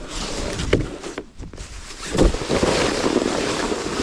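A sled sliding down a snowy slope: a steady hiss of snow with wind on the microphone. There is a thump about two seconds in, and the rushing is louder after it.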